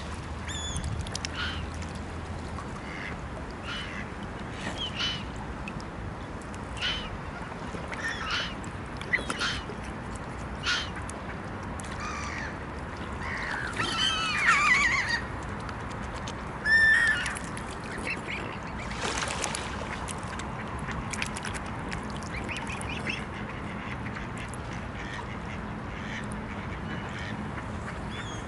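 Waterfowl calling: short, scattered calls every second or two, with a longer wavering call about halfway through and a sharp one a couple of seconds later.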